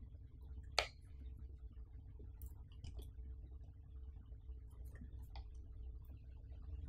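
Hands turning and gripping a Samsung Galaxy A50's cardboard retail box: faint scattered clicks and taps of fingers on the box, with one sharper click about a second in, over a low steady hum.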